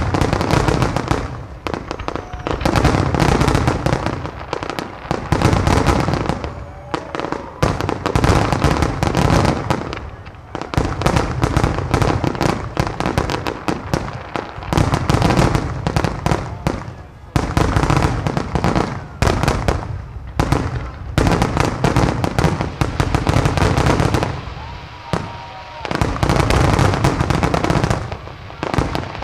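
A rapid barrage of aerial firework shells bursting, many bangs and crackles overlapping in waves, with a few brief lulls between volleys.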